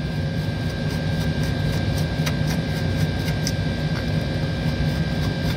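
Steady machinery hum with a high whine, with faint, irregular light clicks and scrapes from a hand tool deburring the inside of a cut copper pipe end.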